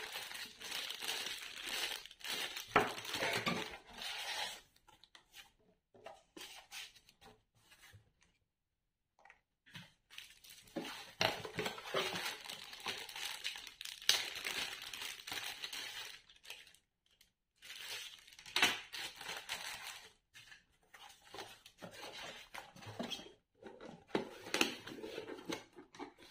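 Plastic packaging bags crinkling and a cardboard box rustling as they are handled, in several bursts with quiet gaps between.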